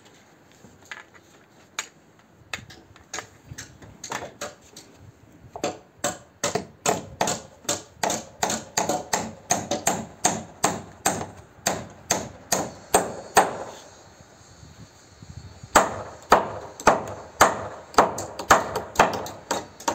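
Hammer driving nails into timber roof rafters. A few light scattered taps come first, then steady blows about two a second, a short pause about three-quarters of the way through, and then more steady blows.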